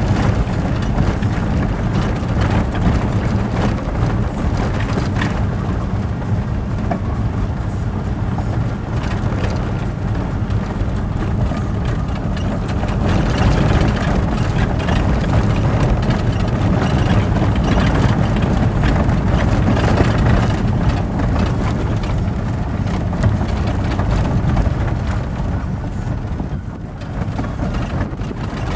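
A vehicle driving on an unpaved gravel road, heard from inside the cab: a steady engine and tyre rumble with frequent small knocks and rattles from the rough surface.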